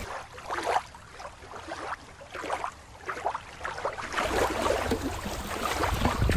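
Water splashing and sloshing as a small plastic toy figure is dipped and swished through shallow water. A low rumble joins about four seconds in.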